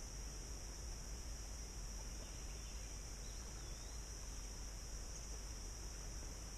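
Steady high-pitched drone of summer insects in the trees, with a low rumble underneath and a faint short bird chirp about three and a half seconds in.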